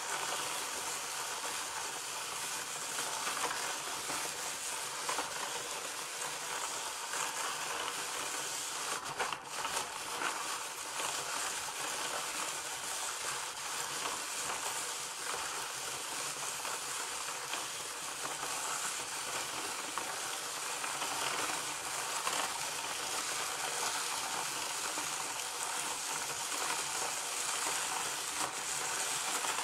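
Tyco Doctor Dreadful Ice Scream Machine, a hand-cranked plastic toy, being turned steadily: an even whirring noise of the crank and drum rolling through the chocolate mixture, with a brief break about nine seconds in. The mixture is freezing onto the drum, not yet solid.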